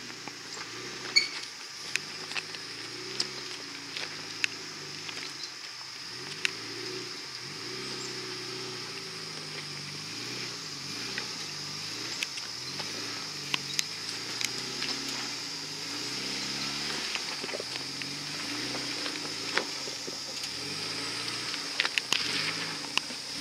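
Suzuki Samurai crawling over a rocky trail at low speed, its engine rising and falling in pitch as the throttle is worked, with scattered sharp knocks and cracks from rocks under the tyres.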